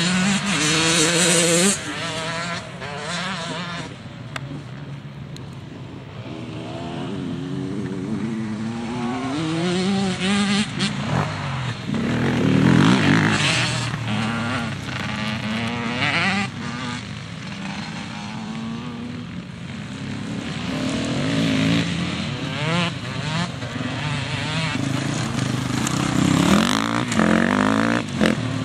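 Enduro motorcycles revving hard and changing gear as they ride a dirt course, the engine pitch climbing and dropping over and over. The sound swells as bikes come closer, loudest about a second in, near the middle and near the end.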